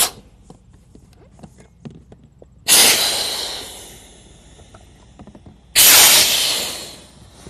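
A sharp click, then air rushing out of a Sea Eagle FastTrack inflatable kayak's recessed valves as the stems are pushed open. There are two loud hisses about three seconds apart, each starting suddenly and fading away over a second or so as the chamber empties.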